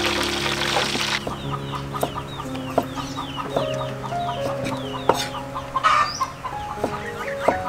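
Chickens clucking, a string of short falling calls repeated several times a second, over soft background music. A few sharp knocks from a knife chopping on a wooden cutting board.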